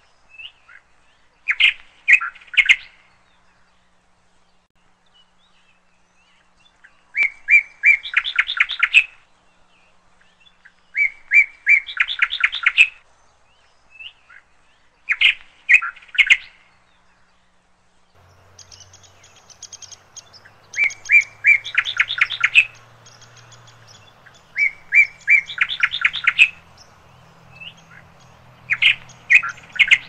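A songbird singing: phrases of quick, repeated whistled notes, one phrase every three to four seconds. About two-thirds of the way through, a faint low hum and hiss come in underneath.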